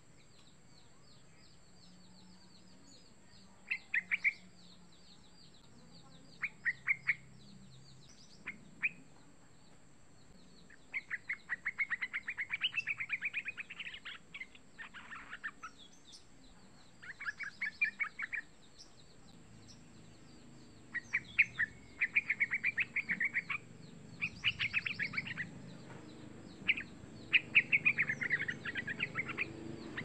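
Young yellow-vented bulbul calling in bursts of rapid, chattering notes. The phrases are short at first, then longer runs of up to about three seconds repeat through the second half.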